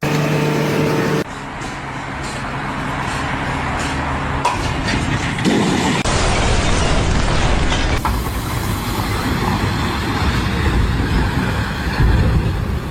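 Heavy construction machinery engines running, with the sound changing abruptly about a second in and again around six and eight seconds in as short clips cut from one to the next.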